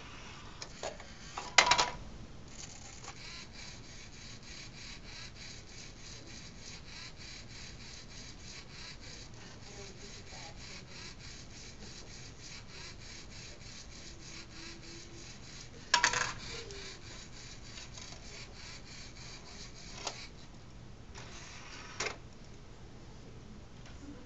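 Lego Mindstorms NXT robot disc changer and external DVD drive at work. The tray opens and shuts with a loud clunk about two seconds in and again about sixteen seconds in. Between them the robot's Lego motors and gears run for over ten seconds with a steady rattling noise and an even clicking a few times a second, and then come shorter runs of it and a few lighter clicks.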